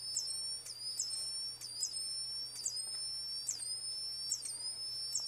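Two Wheelock ET-1010-WS-24 fire alarm speaker/strobes sounding together: a high electronic sweep tone that rises and drops back, repeating about twice a second.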